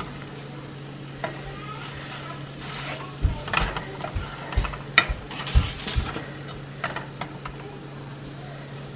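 Wooden spatula stirring and scraping scrambled eggs in a nonstick frying pan, with a cluster of knocks and scrapes through the middle few seconds over a steady low hum.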